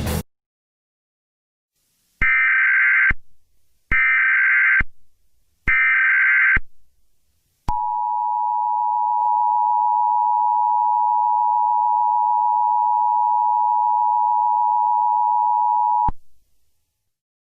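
Emergency Alert System tones: three short bursts of SAME header data with short gaps between them, then the steady two-tone attention signal, held for about eight seconds and cut off abruptly.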